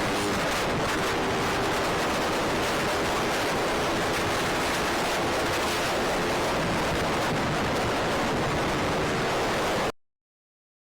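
Steady rushing wind noise on the microphone, with the faint hum of a Honda Monkey 88's small single-cylinder engine underneath, as from a ride on the bike. The sound cuts off abruptly about ten seconds in.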